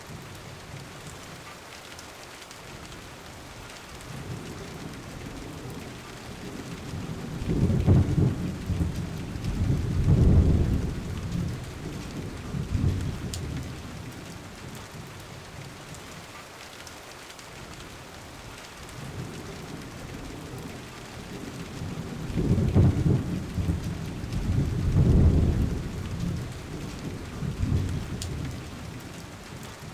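Steady rain with rumbling thunder: the thunder swells up about a quarter of the way in and again about three quarters of the way in, each time as two or three rolls.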